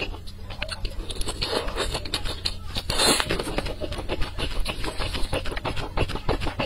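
Close-miked chewing of saucy meat bitten off a skewer: many small clicks and crackles from the mouth, with a louder burst about three seconds in.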